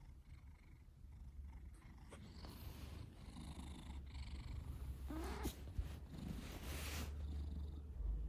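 A sleeping cat snoring: a steady low rumble, with two louder breathy snores about five and six and a half seconds in.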